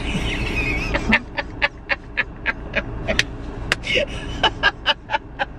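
A woman laughing: a wavering high-pitched squeal for about a second, then a run of short, breathy bursts.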